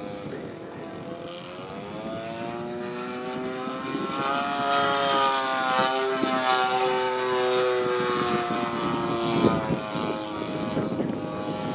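55cc two-stroke gasoline engine and propeller of a radio-controlled Extra 300 model plane flying overhead. The engine note rises and falls in pitch as the plane manoeuvres, and grows louder in the middle as it comes nearer.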